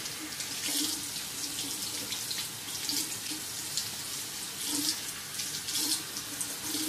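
Water running from a bathroom tap into a sink, splashing unevenly as something is held under the stream.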